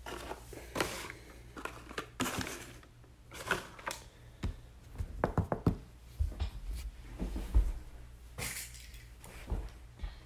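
Handling noises of trading card boxes and their packaging on a table: a string of light knocks, taps and clicks with short rustles, coming irregularly.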